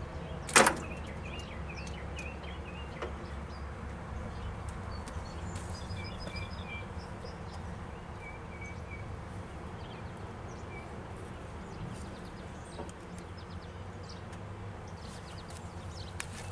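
A single sharp click about half a second in, then a steady low hum with small birds chirping faintly in the background. There is no sound of the engine cranking.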